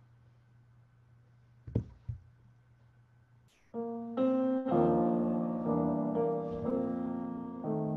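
A faint steady hum with two sharp knocks about two seconds in, then a piano starts playing slow sustained chords about four seconds in.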